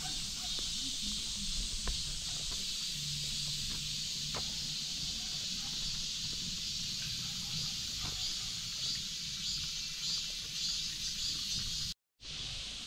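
Steady high-pitched hiss of a summer insect chorus in the forest, with a few faint clicks; the sound drops out completely for a moment about twelve seconds in.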